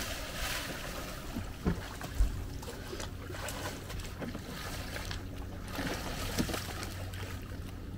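Water splashing as a swimmer strokes up to a Takacat inflatable catamaran tender and pulls himself aboard over its low bow. There are two dull thumps about two seconds in, and a low steady hum underneath.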